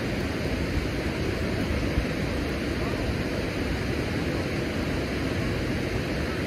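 Steady rushing of fast water flowing out below a dam, with no break.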